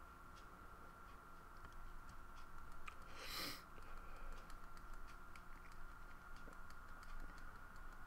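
Faint, irregular light clicks and taps of a stylus on a graphics tablet while colouring, over a steady electrical hum, with one short hiss a little past three seconds in.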